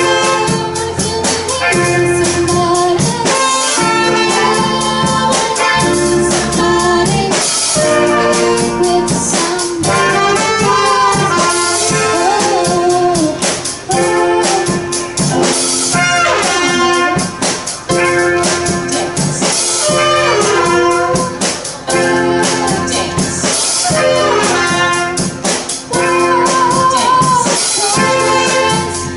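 Live band playing an upbeat song: drum kit keeping a steady beat under bass and keys, with a horn section of trumpet and saxophones carrying the melody.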